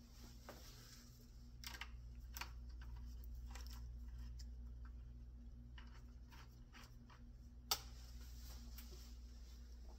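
Quiet room with a steady low hum and scattered light clicks, with one sharper click about three-quarters of the way through.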